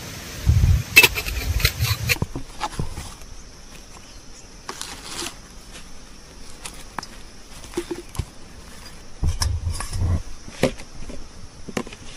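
A steady, high insect drone, with scattered clicks and knocks and a few low thumps.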